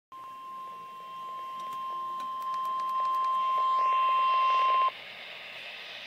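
NOAA Weather Radio receiver sounding its single-pitch 1050 Hz warning alarm tone, the signal that a warning broadcast follows. The tone grows louder in steps, cuts off suddenly about five seconds in, and leaves the radio's static hiss.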